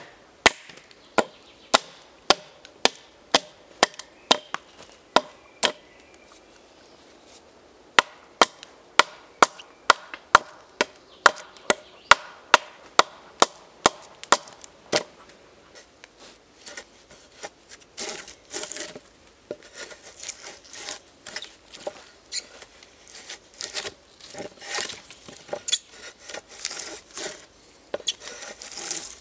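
A hatchet chopping into a standing log: sharp wooden strikes about two a second, with a break of about two seconds early on. In the latter half the strokes come faster and lighter, the blade shaving and scraping the wood.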